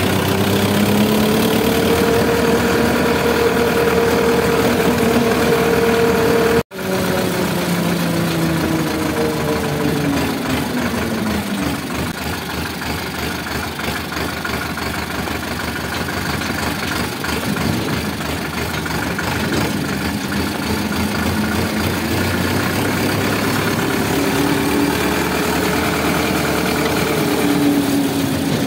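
Sonalika 745 tractor's diesel engine running while driving. Its pitch holds high, then drops for a while as the engine slows, and climbs again in the last third. The sound cuts out for an instant about seven seconds in.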